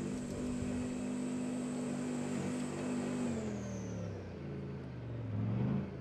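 T-64BV tank's 5TDF two-stroke opposed-piston diesel engine running under way, with a high steady whine above it. About three seconds in the engine note drops as it eases off, then climbs again and grows louder near the end before cutting off abruptly.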